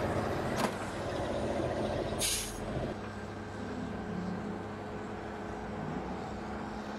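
Plastic tool cases and organizers being handled: a sharp click just after the start and a short hiss about two seconds in, over a steady low hum.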